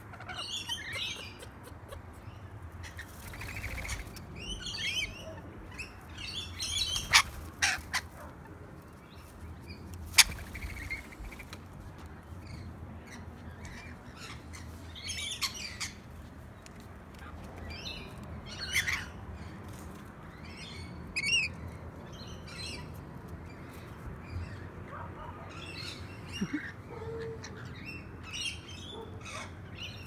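Rainbow lorikeets chattering in many short, high calls, on and off throughout, with a few sharp knocks about seven to ten seconds in.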